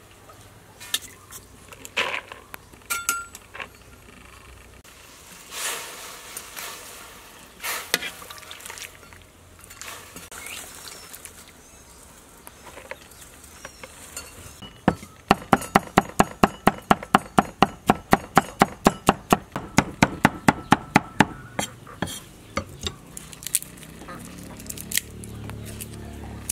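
Metal tongs clinking and scraping against a wok while noodles are lifted and turned, then a kitchen knife chopping fast on a wooden cutting board for about six seconds, about five even strokes a second.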